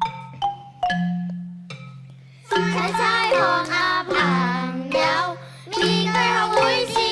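Children's concert music: a struck mallet-percussion melody of single ringing notes over held bass notes. About two and a half seconds in, the music swells into a fuller, denser passage of wavering sustained pitches that comes in roughly one-second phrases.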